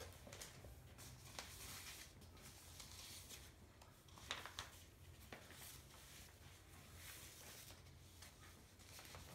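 Near silence: room tone with a steady low hum and a few faint ticks and rustles, the clearest two close together a little before the middle.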